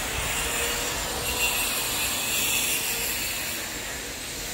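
Steady street noise of a busy downtown shopping street: a continuous hiss and rumble with no distinct events.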